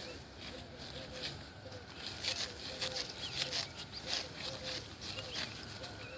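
Rice stalks being cut and gathered by hand: a run of crisp, rustling cuts, about two a second, with faint bird chirps behind.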